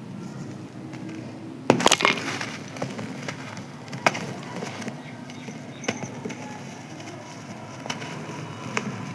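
Dry, crispy sand-cement pieces being crushed and crumbled by hand: a quick cluster of sharp crunches about two seconds in, then scattered single cracks.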